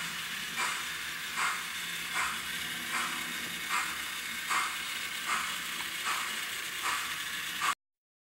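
BR 10 model steam locomotive running slowly, with a regular beat about every 0.8 s over a steady low hum. It cuts off suddenly near the end.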